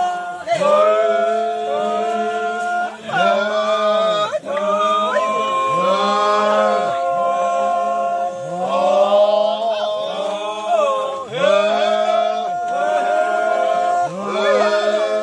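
A group of voices chanting together in short, repeated phrases. Held notes fall away in pitch at the end of each phrase, every second or two.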